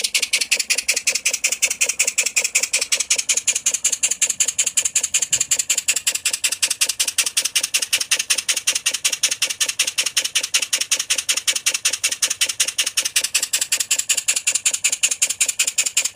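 1930s Heinrich Rehse model steam engine (30 mm bore, 50 mm stroke) running steadily at about 15 psi: a fast, even beat of hissing exhaust puffs.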